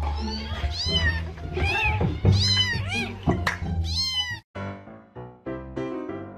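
A quick run of high, arching cat meows, one after another, over a background music track. About four and a half seconds in the meows stop and piano music carries on alone.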